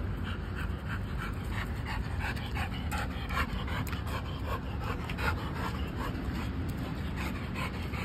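Pit-bull-type dog panting quickly and rhythmically, about three breaths a second, mouth open and tongue out after running.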